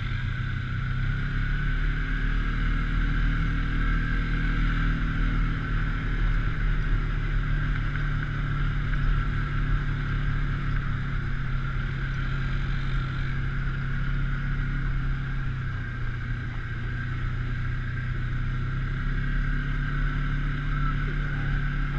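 A motorboat's engine running steadily, with a slight dip in loudness about sixteen seconds in.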